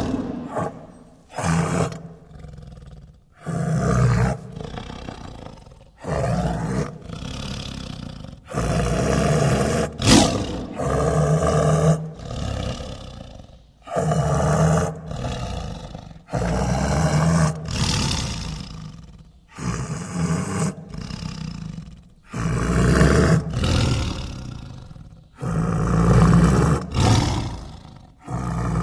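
Tiger growling and roaring: a long run of short, loud roars, one every second or so, each starting sharply and fading away before the next.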